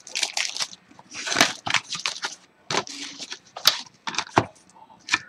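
Foil wrapper of a Bowman Chrome baseball card pack being torn open and crinkled in the hands, in irregular bursts of crackling with small clicks between.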